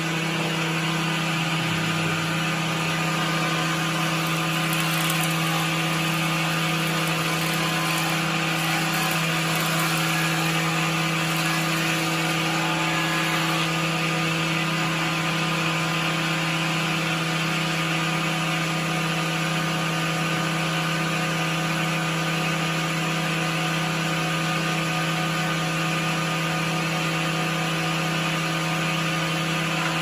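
Electric woodworking jointer running with a steady, constant-pitch motor hum while boards are fed across its cutterhead, adding a hissing cutting noise.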